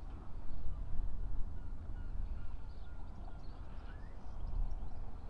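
Wind buffeting the microphone as a gusting low rumble, with faint bird calls chirping and gliding above it.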